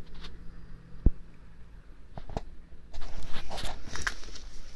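Footsteps scuffing on brick paving, with a low knock about a second in and a few clicks, becoming more frequent from about three seconds in.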